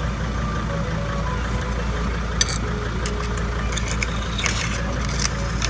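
Van engine idling steadily, turning the raised wheel. Scattered light clicks and scrapes come in from about two and a half seconds on.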